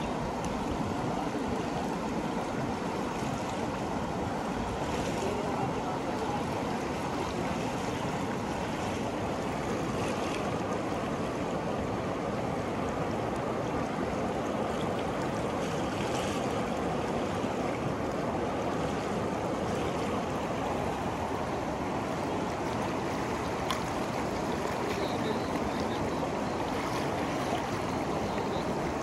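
Ganges river water rushing and churning: a steady, unbroken wash of flowing water.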